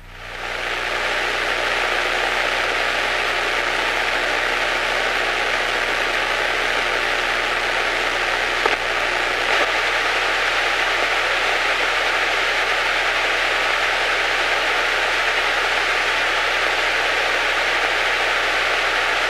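Loud, steady static hiss from the aircraft's radio and intercom audio, with a thin steady whistle under it. It comes on abruptly at the start and then holds unchanged; this is the radio hissing fault that the crew went on to trace.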